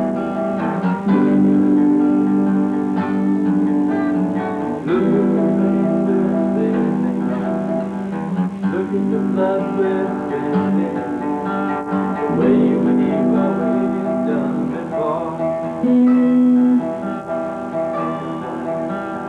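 Acoustic guitar playing in an informal jam, strummed chords and picked notes, with some long held low notes.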